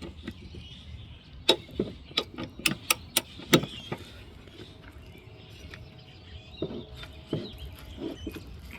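Torque wrench with a 15/16 socket working a mower blade bolt: a run of sharp, irregular metallic clicks over about two seconds, then a few duller knocks.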